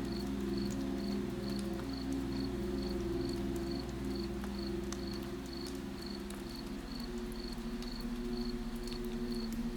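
A cricket chirping steadily, about two chirps a second, over a low steady hum, with scattered faint drips.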